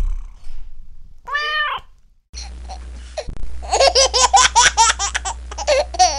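High-pitched laughter in quick repeated 'ha-ha' pulses, starting about two seconds in and running on loudly. It is preceded by one short rising-and-falling call.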